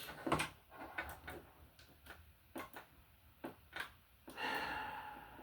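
Small clicks and knocks from handling cables and plugs. About four seconds in comes a louder rustling sound that lasts about a second and fades.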